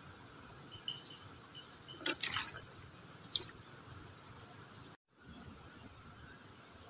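Insects chirring steadily in the riverbank vegetation over the low rush of a fast, swollen river. About two seconds in comes a short burst of sharp clicks, with one more click a second later, and the sound cuts out for an instant about five seconds in.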